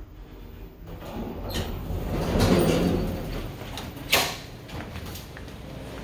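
Elevator doors sliding open, a rumbling slide that swells to its loudest about two and a half seconds in, followed by a single sharp clack about four seconds in.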